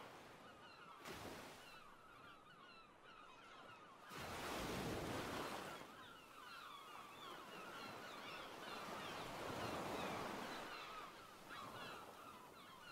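A flock of birds calling faintly throughout, many short overlapping calls, with swells of rushing noise around four to six seconds in and again around ten seconds.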